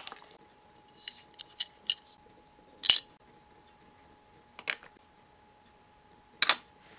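Miniature metal steamer pot pieces being set down and stacked on a toy stove: a few light ticks, then separate sharp clinks, the loudest about three seconds in and another near the end as the lid goes on.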